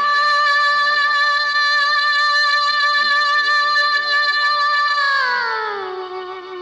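Background music: a single long held note with a slight vibrato, which slides down in pitch about five seconds in and fades.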